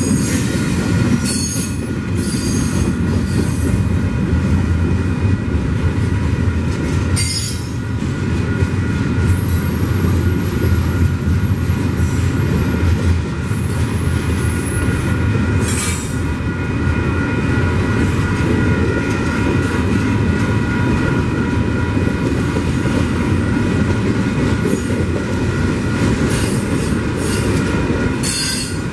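Double-stack container train's well cars rolling past close by: a steady rumble with a continuous high squeal from the wheels and a few scattered clanks.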